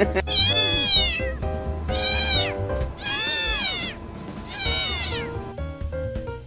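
Domestic cat meowing four times, each meow drawn out, rising and then falling in pitch.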